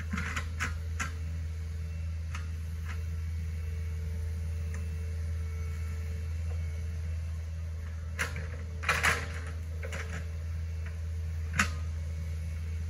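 Hitachi ZX48U mini excavator's diesel engine running with a steady low drone as it digs out a ditch, with a few sharp clanks: several in the first second, two or three a little past the middle, and the loudest one near the end.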